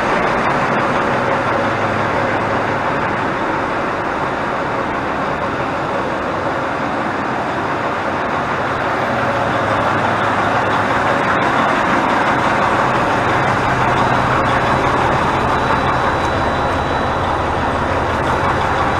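Freightliner semi-truck's diesel engine idling, a steady even noise with a faint low hum.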